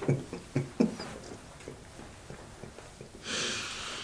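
Men's laughter in short pulses, dying away within the first second. Near the end comes a breathy exhale lasting about a second, a man blowing out through his mouth.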